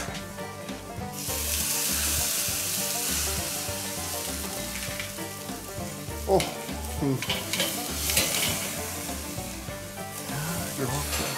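Flank steak sizzling on the grate of a charcoal kettle grill over hot coals, the sizzle swelling about a second in as the meat is turned with metal tongs, with a few clicks of the tongs.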